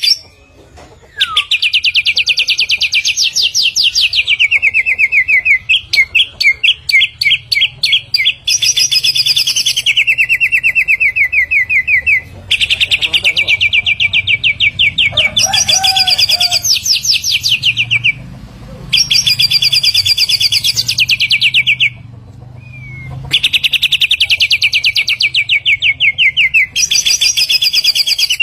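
A samyong songbird singing long, very rapid trills, each running two to four seconds and dipping slightly in pitch at the end, repeated with short pauses between. This is its full 'gacor' song, used as master song for training other birds.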